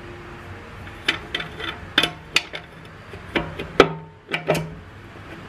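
Rear drum of a 47RE automatic transmission being worked down into the case by hand, metal knocking and clinking against the parts inside: about eight short knocks, each ringing briefly, the sharpest about four seconds in.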